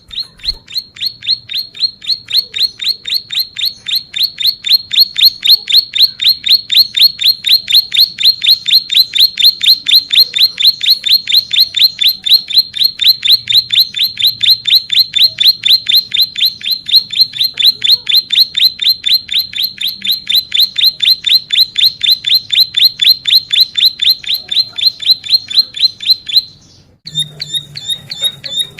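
Ciblek sawah (a prinia) singing a long, rapid run of high repeated notes, about four a second: the long 'ngebren' song used as a tutor recording. It breaks off near the end and resumes with a sharper repeated note.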